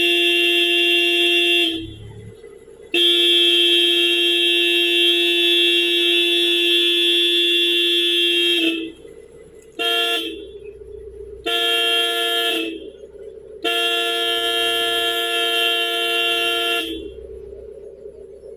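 Car horn honked in a series of presses, each a steady two-note tone: one ending about two seconds in, a long blast of about six seconds, a brief toot, a one-second blast and a final one of about three seconds.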